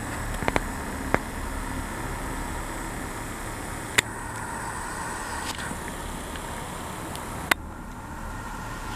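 Steady rushing background noise of an outdoor camera recording, broken by a few sharp clicks: two close together near the start, one about four seconds in and one near the end.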